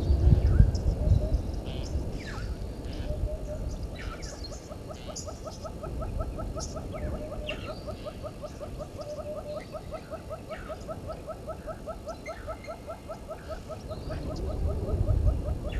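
Outdoor waterhole ambience: a fast, even pulsing trill runs through most of the middle, from an animal calling at the dam, with scattered short high bird chirps over it. Wind rumbles on the microphone at the start and again near the end.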